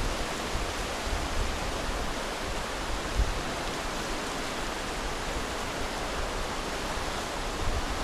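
Steady rushing noise with no pitch, spread evenly from deep to high and holding level throughout.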